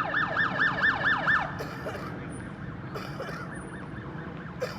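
Emergency vehicle siren on a fast yelp, about five sweeps a second, that cuts off about a second and a half in. A fainter siren carries on under two short hissing bursts, and there is a sharp knock near the end.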